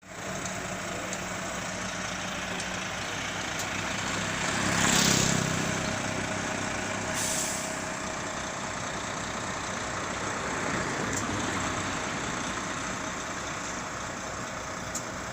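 Omega volumetric concrete mixer truck running steadily, with a loud burst of hiss about five seconds in and a shorter hiss a couple of seconds later.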